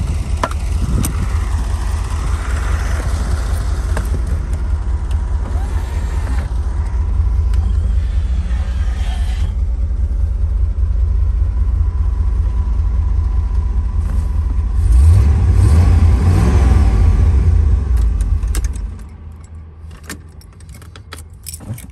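1982 Corvette's 350 V8 engine running at idle with a steady low rumble, running louder for a few seconds, then switched off about nineteen seconds in. A few sharp clicks and a key rattle from the ignition key follow near the end.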